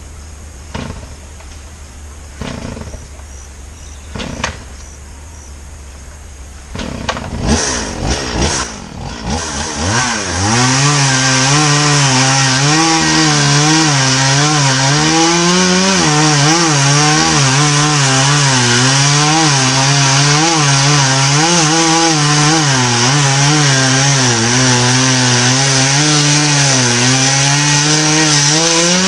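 Chainsaw engine starting about seven seconds in with a few uneven revs, then running loud and steady from about ten seconds in, its pitch wavering as it works under load cutting through a tree trunk.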